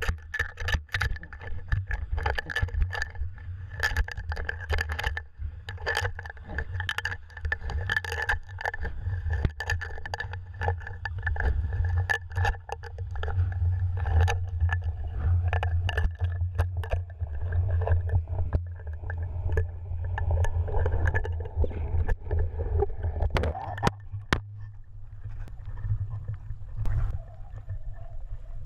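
Underwater sound picked up by a GoPro Hero 2 in its waterproof housing on a cod jigger being hauled up: a muffled rumble of moving water with a steady hum and many clicks and knocks from the jigger and line. About 24 seconds in the rumble drops away as the camera comes out of the water.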